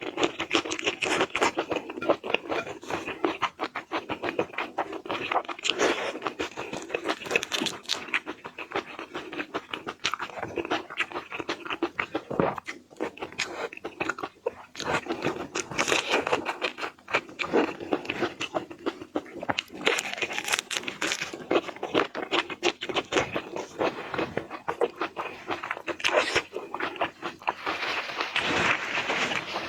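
Close-up eating sounds of seafood: crunching, biting and chewing, with dense crackling clicks throughout.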